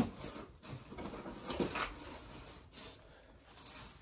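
Quiet rustling of cardboard gift boxes and tissue paper as they are opened and unpacked.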